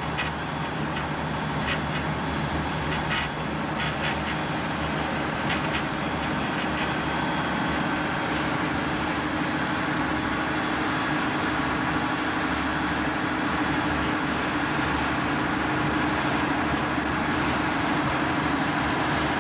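Boat engine running steadily underway, heard from inside the cabin as a continuous drone with a low hum. A few light clicks or rattles come in the first several seconds.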